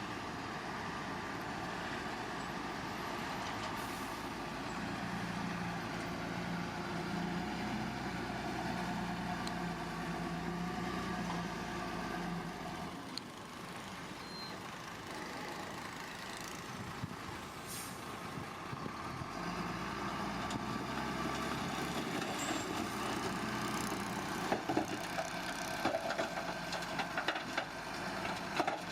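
Heavy diesel engine of earthmoving machinery running under load. It eases off about halfway through and picks up again, with scattered clanks and knocks near the end.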